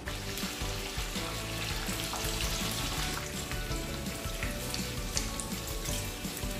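Breaded fish fillets deep-frying in a pan of hot oil: a steady sizzle, with background music under it.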